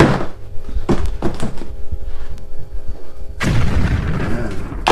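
Kitchen items knocking against the counter around a blender jar: one sharp knock, then a few lighter knocks about a second in. Near the end comes a noisy rustle of about a second and a half while salt is added to the garlic in the jar, ending in a click.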